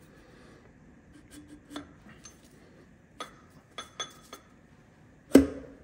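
Sharp metal clinks and taps as a piston is worked by hand down through a tapered ring-loading sleeve into a Detroit Diesel 6-71 cylinder liner, with one much louder knock near the end.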